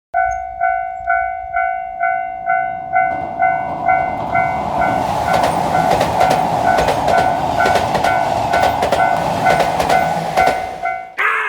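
Japanese railroad crossing warning bell ringing "kan-kan" about twice a second. From about three seconds in, a train passes with its wheels clacking over the rail joints. Bell and train cut off together near the end, and a short sound falling in pitch follows.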